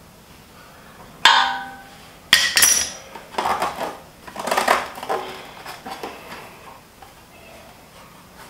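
Metal clinks and clatter from hand tools and stainless steel hardware being handled. There are two sharp ringing clinks about a second apart, the first at about a second and a quarter in, then a few seconds of irregular rattling and clanking that dies down near the end.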